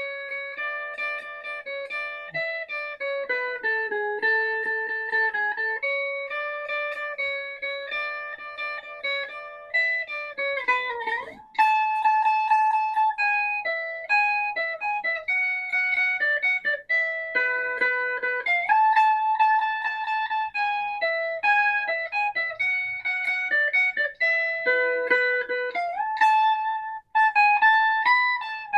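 Guitar played with a pick in an instrumental break of a song: held chords at first, then, after a sliding note about eleven seconds in, a louder run of single-note melody lines.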